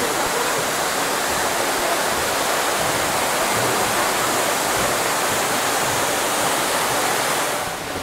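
Steady, loud rushing of flowing water, dropping away sharply near the end.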